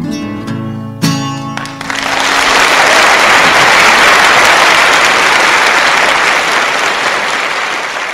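Acoustic guitar finishing a song with a last strum that rings on, then an audience applauding from about two seconds in, loudest in the middle and fading near the end.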